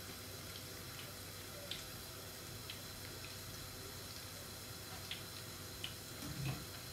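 Zucchini fritters frying in hot oil in a pan: a faint steady sizzle with scattered small pops and crackles, and a short low sound near the end.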